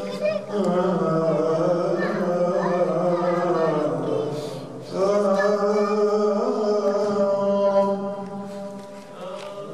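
A man's solo voice chanting Quranic recitation in an Arabic maqam through a microphone, with long, ornamented held notes. The first phrase breaks off about four seconds in; a second begins about a second later and fades near the end.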